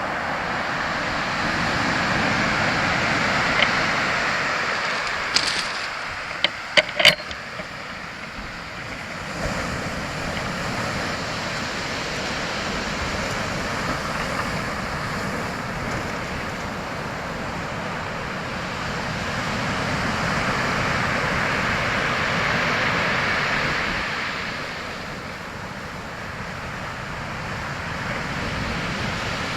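Sea surf: waves breaking on the shore in a steady rush that swells twice, loudest a few seconds in and again about two-thirds through. A few sharp clicks sound together about six to seven seconds in.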